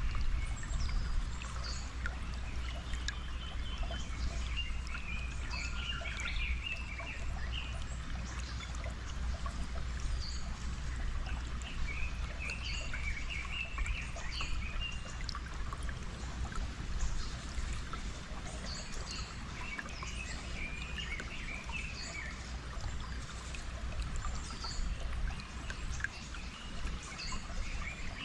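Steady running water, a stream or trickle, with songbirds chirping and trilling over it.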